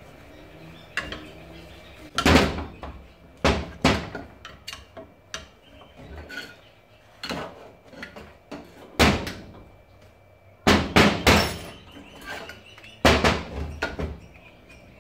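Sharp metal knocks as a Hitachi air suspension compressor is tapped and set down on a steel workbench, about eight of them in irregular groups with a quick triple near the middle. The knocking goes with working the filter in the desiccant canister down until it sits square.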